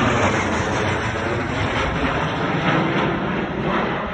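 Aircraft engines running loud as a plane departs: a dense, steady noise that begins to fade near the end.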